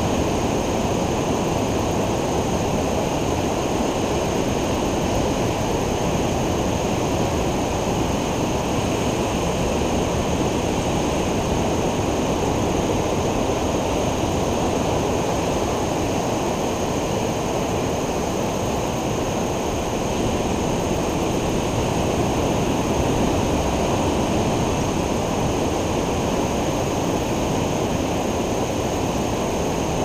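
Steady roar of ocean surf breaking along the beach, an even low rumble with no single wave standing out.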